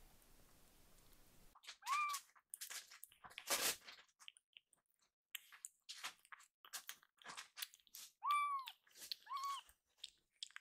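Kittens eating from a bowl, with many short wet chewing and smacking clicks, and a kitten giving three short meows, one about two seconds in and two close together near the end, calling for more food.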